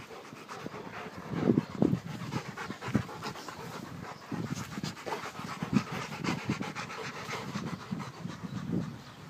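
Rottweilers panting close up with open mouths, in quick irregular breaths, with a few louder bumps as a dog pushes against the phone.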